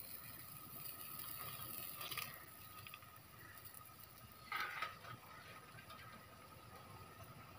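Faint bubbling of seasoned water boiling in a metal cooking pot, with two short sudden louder sounds about two seconds and four and a half seconds in.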